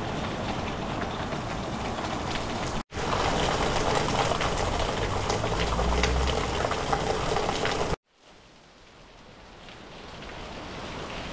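Rain falling steadily, in three short clips joined by abrupt cuts. In the middle clip, the loudest, a stream of runoff pours off a roof edge and splashes onto the grass. The last clip is much quieter and slowly grows louder.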